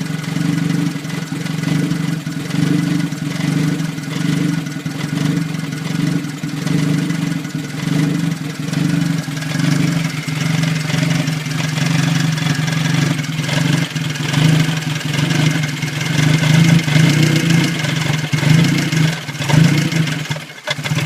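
1989 Toyota Tercel's 3E 1.5-litre four-cylinder engine idling roughly, its sound wavering unevenly in level. There is a brief dip near the end.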